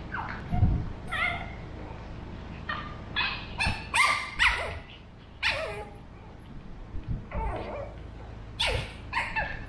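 A pug puppy and a Shih Tzu mix trading short, high yips and whines through a wire pen, many brief calls in quick runs, some sliding down in pitch. There are a few low thumps between the calls.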